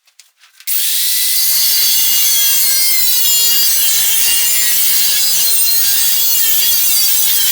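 Angle grinder working on the steel body panels of a 1958 Plymouth, grinding out rust. It starts abruptly about a second in and then runs as a steady, loud, high-pitched abrasive hiss.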